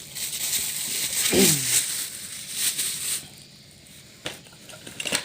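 Crinkling, rustling handling noise for about three seconds, with a short falling tone about a second and a half in, then a few sharp clicks near the end.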